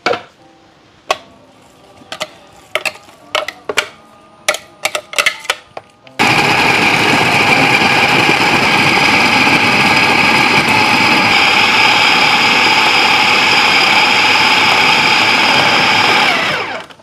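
Small electric blender grinding raw meat: a run of scattered clicks and knocks, then the motor starts suddenly about six seconds in, runs steadily and loudly for about ten seconds, and stops.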